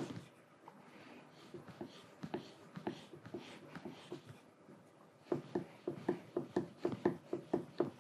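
Chisel blade being stroked back and forth on a strop charged with chrome polish, a quick run of rubbing strokes about five a second, giving the edge its final polish. The strokes stop for a few seconds while the chisel is handled and turned over, then start again about five seconds in.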